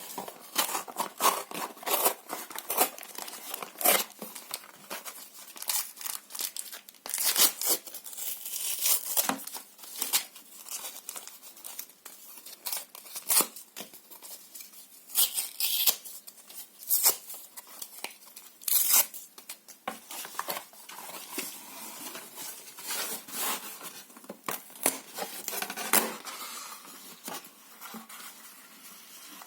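Paper and cardboard being torn: an irregular run of short rips with crinkling between them, some louder and sharper than others.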